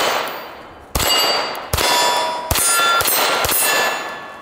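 Staccato C2 9mm 2011-pattern pistol fired about six times at a steady pace, under a second apart. Steel plate targets ring with a metallic clang after the hits, the ringing fading out near the end.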